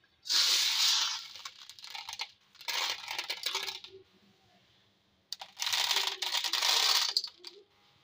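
Dry whole black urad dal grains rattling and clattering against a stainless steel bowl as a hand stirs and sifts them to pick out small stones, in three spells of rapid clicking.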